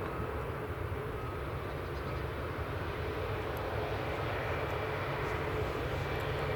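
Jet airliner engines running steadily: a constant rumble with a faint whine held at one pitch.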